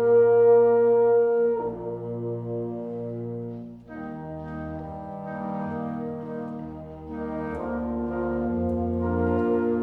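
Slow background music of long held chords, changing every two to four seconds, with a brief dip in loudness about four seconds in.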